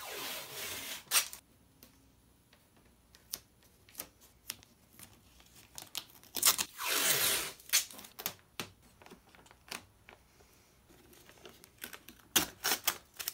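Blue FrogTape painter's tape being pulled off the roll in two long rips, one at the start and one about six seconds in, with scattered sharp clicks and crackles as the tape is pressed along the cello's edge and a quick run of clicks near the end.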